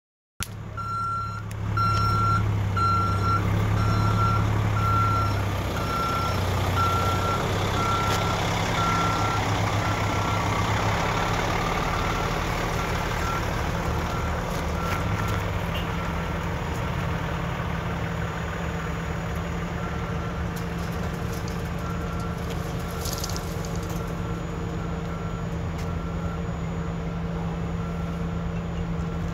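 A heavy vehicle's reversing alarm beeps steadily, about two beeps a second, over the low rumble of truck engines running. The beeping grows fainter and more broken after the first several seconds.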